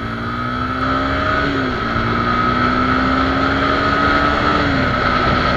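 Suzuki Gixxer SF 250's 249 cc single-cylinder four-stroke engine revving up under hard acceleration through the gears. The pitch climbs, drops with an upshift about one and a half seconds in, climbs again and drops with another shift near the end.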